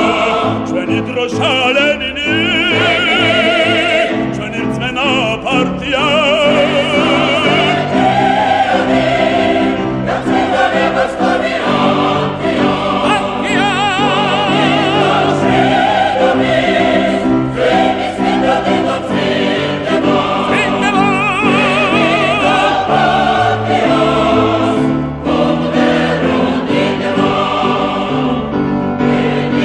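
Choir singing with orchestral accompaniment; the voices sing long held notes with a strong vibrato.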